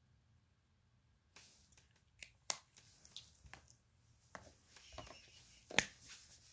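Dry-erase markers being handled: after a short silence, a string of light, irregular clicks and taps as the brown marker is set down and the black one is picked up and uncapped.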